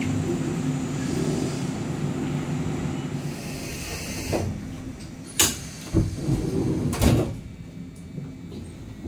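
Steady low rumble of a Kyoto Randen tram at a station platform, then, inside the tram car, a few sharp knocks and clunks, the loudest about five and seven seconds in.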